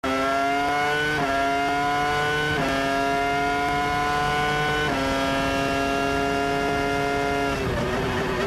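2003 Sauber Formula 1 car's 3-litre V10 (Petronas-badged Ferrari) at full throttle, heard onboard. Its pitch climbs slowly in each gear and drops sharply at three quick upshifts, then falls and goes ragged near the end as the driver lifts off for the next corner.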